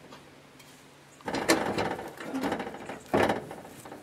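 Ratchet wrench clicking in two spells while snugging the mounting bolts of a starter fitted to a 4A032 engine, the first spell about a second in and lasting over a second, the second shorter near the end.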